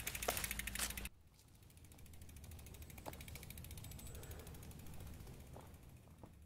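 Mountain bike's rear freehub ratchet clicking rapidly as the bike coasts past, cutting off about a second in. After that only a faint low rumble and a couple of soft clicks.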